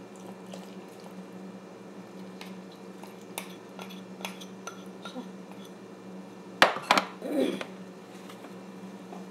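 Bowls handled while mixing dough: scattered light taps and clinks, then two loud knocks of a bowl being set down, followed by a short scrape, about two-thirds of the way through. A steady low hum runs underneath.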